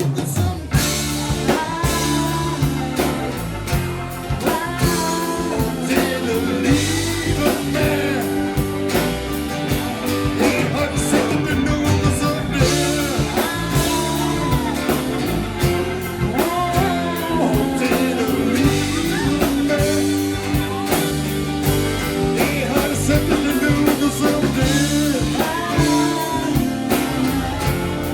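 Live rock band playing a ballad: a drum kit keeping a steady beat under bass and held chords, with a bending melody line over the top.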